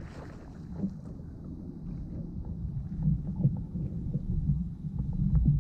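Low rumble of water and wind around a fishing kayak, with scattered light knocks, growing louder about three seconds in.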